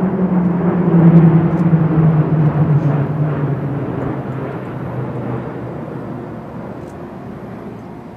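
Twin-turboprop E-2D Advanced Hawkeye aircraft flying overhead in formation: a steady propeller drone, loudest about a second in, that drops in pitch as the aircraft pass and then fades as they fly away.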